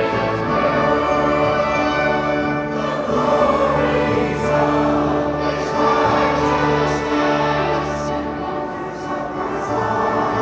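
Church choir singing with orchestra accompaniment, holding long sustained chords.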